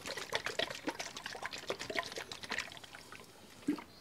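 Lemon juice squirted from a squeeze bottle onto seasoned raw chicken in a plastic bowl: an irregular patter of dribbling drops, fading after a few seconds, then a single soft knock near the end.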